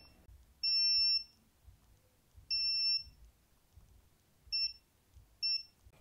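Digital multimeter's continuity buzzer beeping as its probes touch a MagSafe 1 connector pin and the cable's wire end: two beeps of about half a second, then two short ones. Each beep signals a closed circuit (continuity) between the pin and the wire.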